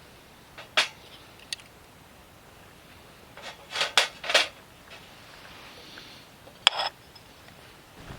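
A few short knocks and scrapes of objects being handled: one about a second in, a cluster of three or four in the middle, and another near the end.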